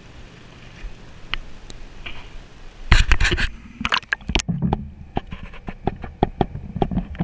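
Faint steady hum, then from about three seconds in a rapid run of scratchy knocks and clicks from a camera handled in a bucket of live bluegill and crappie, turning muffled once it is under water.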